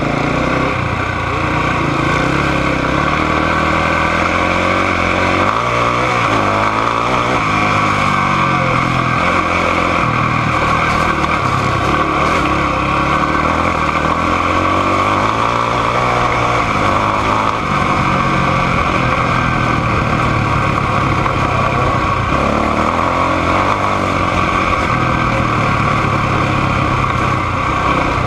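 ATV engine running hard at close range, its pitch rising and falling several times as the throttle opens and closes.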